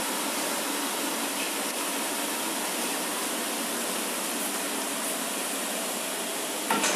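Steady rushing noise with no clear pitch, with a brief knock near the end.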